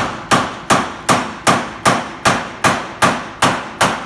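Hammer striking a chisel over and over to cut through the nails fixing an air conditioner to a wall: evenly timed, about two and a half blows a second, each with a short metallic ring.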